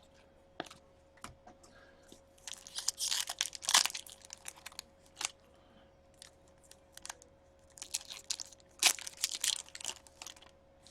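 Foil wrapper of a hockey card pack being torn open and crinkled, with cards clicking as they are handled, in two spells of crackling a few seconds apart. A faint steady hum sits underneath.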